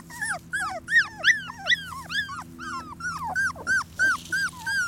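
Young chocolate Labrador puppy whimpering: a quick string of short, high-pitched cries, each rising and falling in pitch, about three a second.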